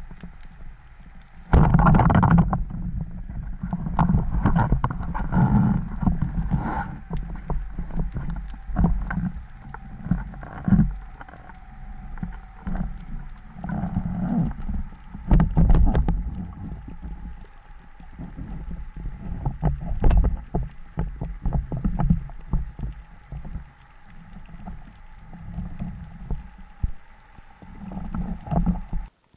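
Underwater sound picked up by an action camera during a spearfishing dive: water sloshing and rushing around the camera housing in irregular surges as the diver swims, with scattered clicks and knocks from handling the gear.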